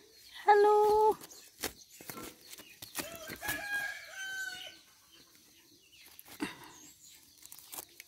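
A rooster crows once in the background, a drawn-out call in a few pitched steps about three seconds in. Scattered knocks and scuffs come from a bird being grabbed and handled.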